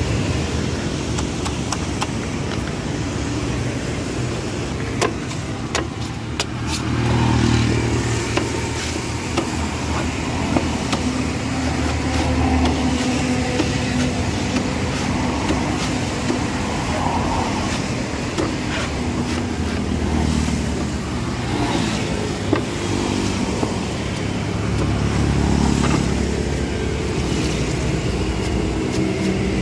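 Steady rumble of passing road traffic, with several sharp knocks of a cleaver chopping the husk off a young green coconut on a wooden block.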